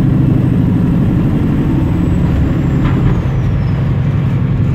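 Heavy truck's diesel engine running steadily, heard from inside the cab, with the engine note easing and dropping slightly about three seconds in.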